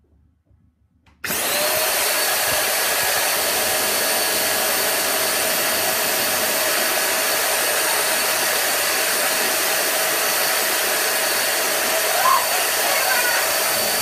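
Vacuum cleaner fan motor switched on about a second in, then running steadily at full speed: a loud rush of air with a high whine.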